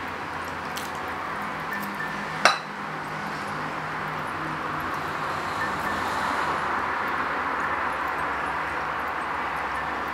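A single sharp clink of a metal fork against tableware about two and a half seconds in, over a steady background hiss.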